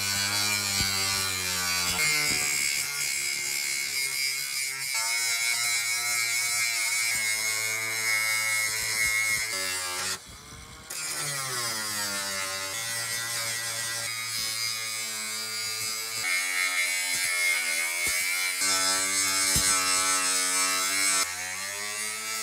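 Angle grinder with a cutting disc cutting through steel sheet: a steady high whine with the hiss of the disc on metal. About ten seconds in it stops for a moment, then spins back up with a rising pitch.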